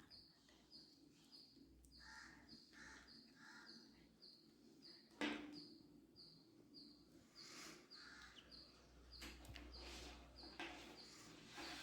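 Near silence with faint birds calling in the background: a short high chirp repeating about twice a second, and three quick calls a couple of seconds in. One faint tap about five seconds in.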